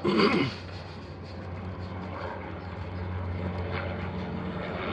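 A steady low mechanical hum with a noisy rush over it that grows gradually louder, after a brief bit of voice at the very start.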